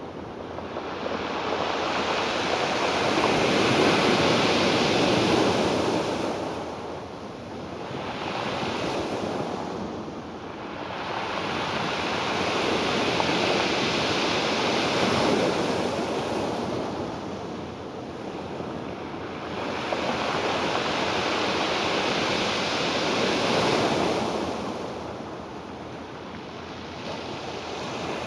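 Ocean surf: waves breaking and washing in, the rush swelling and dying away as a new wave rolls in every five or six seconds.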